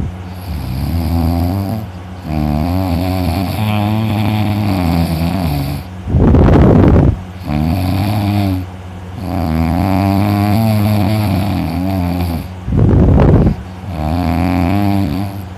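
A person snoring heavily in deep sleep. Two very loud noisy snores come about six and a half seconds apart, and a long wavering drone fills the breaths between them.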